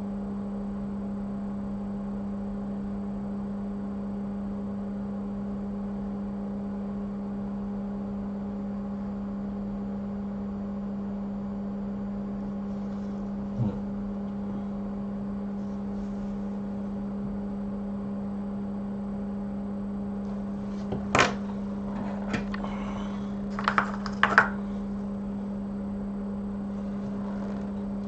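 Steady electrical hum of workbench equipment, with a single small knock about halfway through and a handful of sharp clicks and taps of small hand tools near the end.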